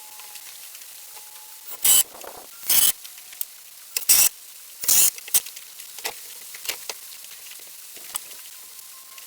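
Power driver running in four short bursts, driving screws into the lumber of a wooden frame, with lighter clicks and knocks in between.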